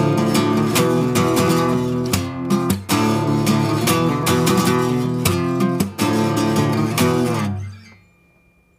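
Acoustic guitar played fingerstyle, a solo arrangement of picked melody and bass with sharp strummed chords now and then. Near the end the playing stops and the last notes fade out.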